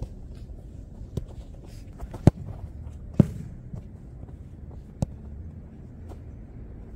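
A football kicked and touched by a boot on artificial turf: a few sharp thuds, the two loudest about two and three seconds in, with lighter taps between, over a steady low rumble.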